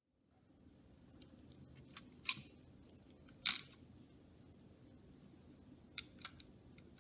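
Small LEGO plastic pieces clicking as round-brick cans are loaded into a LEGO vending machine: two sharp clicks a little over a second apart, then two faint ticks near the end.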